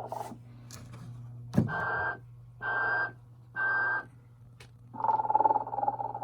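Telco 1992 animated Sleeping Santa's electronic snoring and whistling: a long rasping snore fades out, a sharp click follows, then three short whistling tones about a second apart, and another long snore starts about five seconds in. A steady low hum runs underneath.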